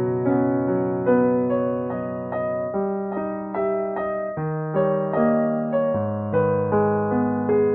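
Background music: a gentle electric piano tune with notes struck at a steady pace.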